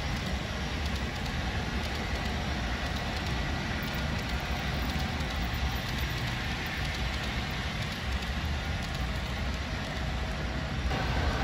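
HO scale bilevel passenger cars rolling past on model track, a steady rumbling noise of small metal wheels on rail.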